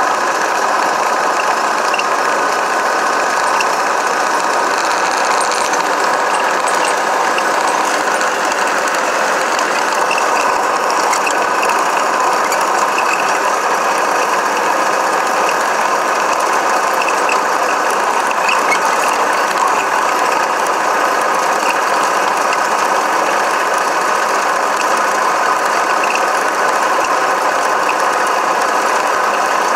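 Radio-controlled car driving over packed dirt, heard from its onboard camera: a loud, steady whir of motor and gears with scattered small ticks.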